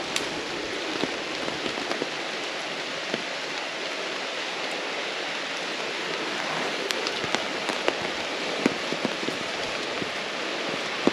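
Steady rain falling, with scattered louder drops ticking now and then over the even hiss.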